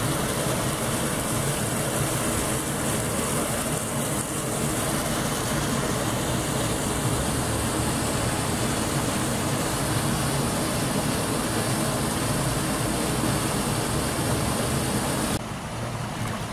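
An engine running steadily close by: an even low hum under a broad hiss. The level drops suddenly near the end.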